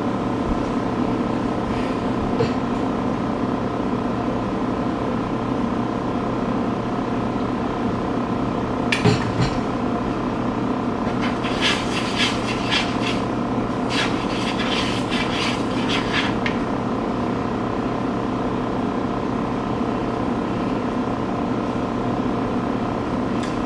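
A utensil scraping and clicking against a bowl in quick clusters as pancake batter is stirred, mostly between about 9 and 16 seconds in, over a steady hum.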